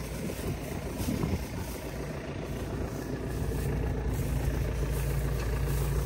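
John Deere 6120M tractor engine running steadily, a low even hum.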